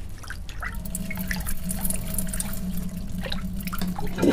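Water dripping and trickling, with light scattered clicks over a steady low hum.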